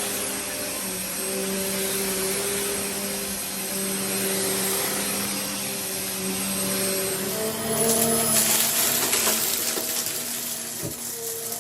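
Vacuum cleaner running with a steady motor hum and rushing air. About seven seconds in the motor pitch rises slightly, and a rapid crackle of clicks and rattles sets in over the hum.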